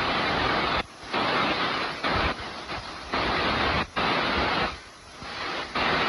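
Loud rush of a waterfall pouring over rock, a steady roar of falling water that dips abruptly for moments several times.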